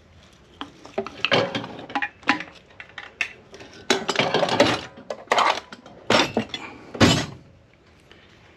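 Metal tools and engine parts, among them a steel connecting rod, clinking and knocking as they are handled and set down. The knocks come unevenly, the loudest about four and seven seconds in.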